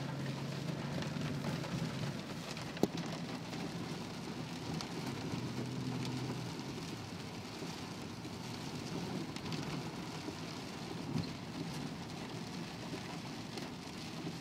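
Steady hiss of rain and tyres on a wet road heard from inside a moving car, with a low engine hum for the first half and one sharp click about three seconds in.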